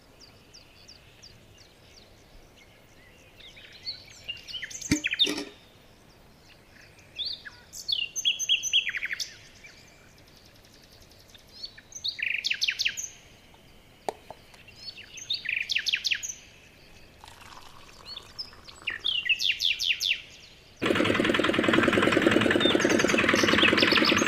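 Small birds chirping in short bursts of quick repeated notes every few seconds, with a couple of brief clicks. About 21 seconds in, the small electric motor of a miniature cement mixer made from a can starts and keeps running with a steady buzz, louder than the chirps.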